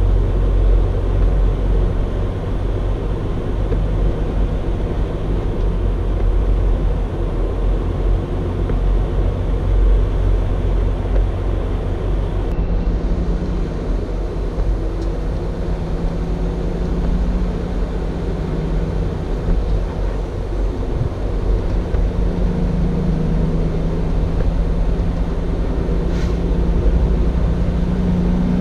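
Freightliner Cascadia semi truck's diesel engine running with a steady low rumble. An engine hum comes up twice, around the middle and again near the end.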